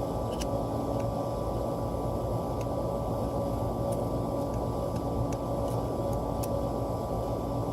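Steady mechanical hum and drone with a few faint, light clicks scattered through it.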